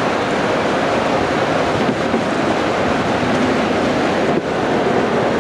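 Steady, loud rushing noise inside a police SUV's cabin, with no distinct knocks or tones, briefly dipping near the end.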